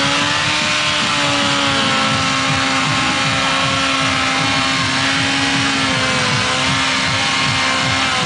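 Suzuki Hayabusa inline-four engine held at high revs while the bike spins donuts, the pitch wavering a little as the throttle is worked.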